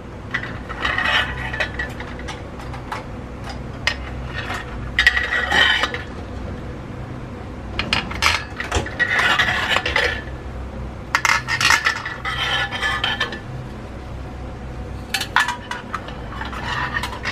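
Metal idli plates clinking and scraping against one another and the central stand stem as they are lifted off and set down on the counter, in about five spells of clatter with short pauses between.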